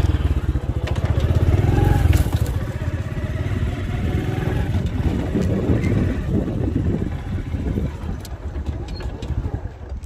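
Motorcycle engine running as it rides along a dirt track, with tyres crunching over the dirt; the engine eases off near the end.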